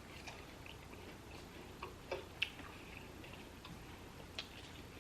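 Faint chewing, with soft, irregular mouth and teeth clicks, a couple a little louder about two seconds in.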